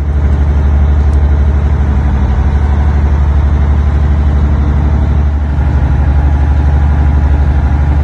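A boat's engine running steadily underway, heard inside the wheelhouse as a loud, even, low hum.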